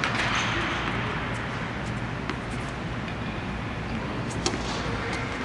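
Steady hum of the air-supported tennis dome's blower, with a faint knock about two seconds in and a sharp racket strike on a tennis serve near the end.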